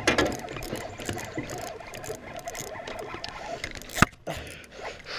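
Spinning reel being cranked steadily as a hooked bass is reeled in to the boat, a run of small rapid clicks and ticks, with one sharp knock about four seconds in.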